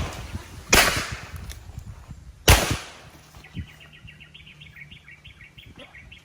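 Two handgun shots, less than two seconds apart, the second louder, each trailing off with a short echo. A rapid string of high chirps, about five a second, follows.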